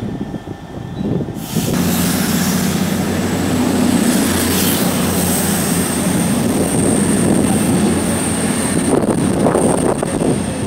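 Class 66 diesel-electric locomotive, with its EMD two-stroke V12, running as it moves slowly through the station with a freight train. The engine noise jumps louder about a second and a half in, and a thin high squeal joins it about halfway through.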